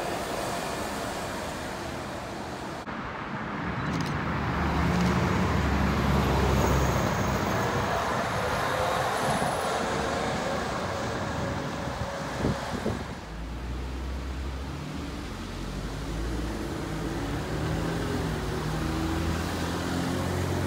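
Neoplan electric trolleybuses driving past in street traffic: tyre and road noise with a low hum that swells as a bus goes by. The sound changes abruptly about three and thirteen seconds in.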